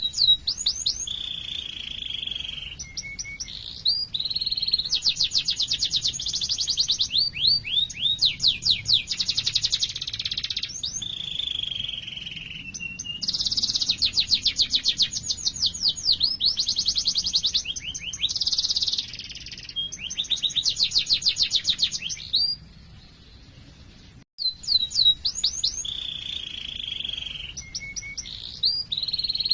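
Domestic canary singing a long rolling song: fast trills of repeated upswept notes alternating with buzzy held rolls. A gap of about two seconds near the end, then the song starts again.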